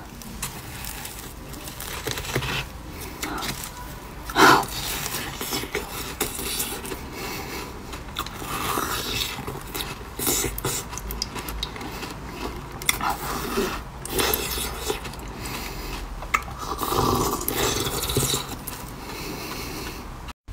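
Biting and chewing a block of red-coloured ice: repeated crisp crunches and scraping of teeth on ice, with the loudest crunch about four and a half seconds in.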